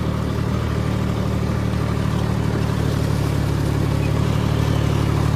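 Farm tractor's diesel engine running steadily under load with an even pulse, heard from the driver's seat as it ploughs a flooded paddy field.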